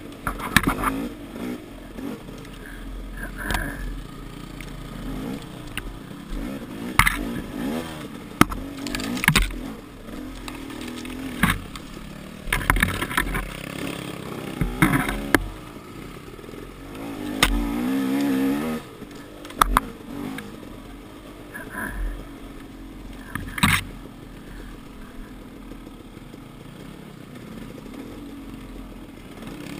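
Dirt bike engine running at varying throttle along a tight woods trail, revving up and down, with one longer, louder rev a little past halfway. Sharp knocks and clatter from the bike and brush break in again and again.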